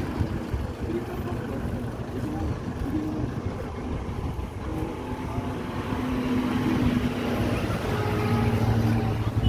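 Motor vehicle engine running nearby over a steady outdoor drone, growing louder with a deep hum in the last few seconds.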